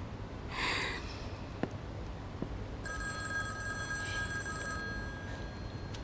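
A telephone ringing: one steady ring lasting about two and a half seconds, starting about halfway in.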